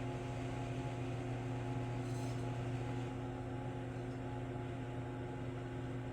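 Steady low mechanical hum, like a fan or motor running, with an even drone and no change in level.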